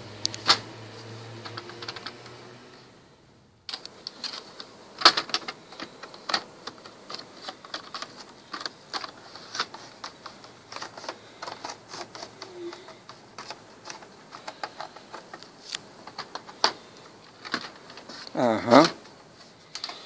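Plastic back cover of an HP Envy Rove 20 all-in-one being pried off with plastic tools: a run of irregular clicks and snaps as the cover's clips let go one by one.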